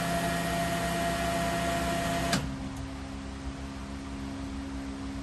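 Vacuum packaging machine's vacuum pump running steadily during a vacuum cycle. About two seconds in it cuts out with a click, and a quieter steady hum carries on: the vacuum stage has stopped and the machine is in its pause phase.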